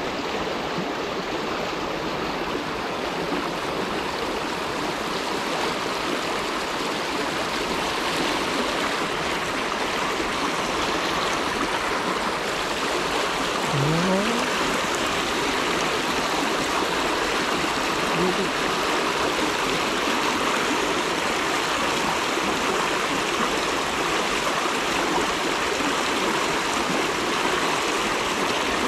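Fast, shallow stream rushing over a bedrock riffle: a steady, even rush of water.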